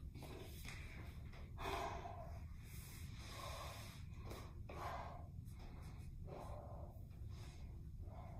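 A woman breathing hard, a series of audible breaths in and out about once a second, over a faint low steady hum.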